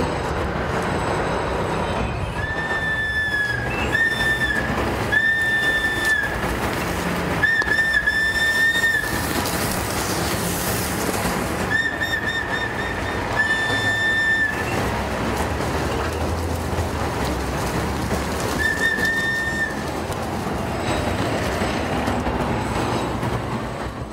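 A plastic whistle blown in a series of short and long blasts, about eight in all, each a steady shrill tone. Most come in the first half; after a pause there is one last blast.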